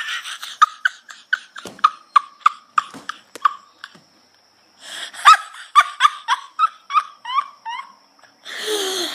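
A person laughing hard in two long runs of short, rapid 'ha' bursts, with a gasping breath in near the end.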